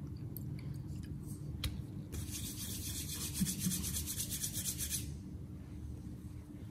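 Hands rubbing briskly together, a quick rhythmic rubbing that starts about two seconds in and lasts about three seconds. It comes just after a single sharp click.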